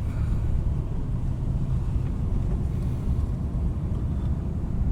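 Steady low rumble inside a car driving through hurricane winds: road and engine noise mixed with wind against the car.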